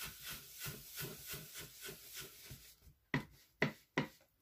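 Foam blending brush scrubbed back and forth over cardstock, a quick even rhythm of about three strokes a second, working ink into the paper. Near the end three sharp taps as the brush is dabbed onto the ink pad to pick up more ink.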